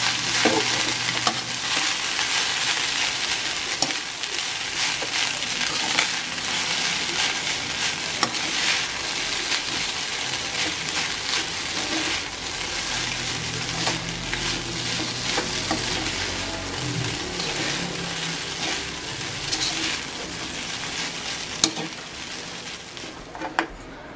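Rice stir-frying in a wok, sizzling steadily, with a metal spatula scraping and tossing it against the pan in many short strokes. The sizzle eases off near the end.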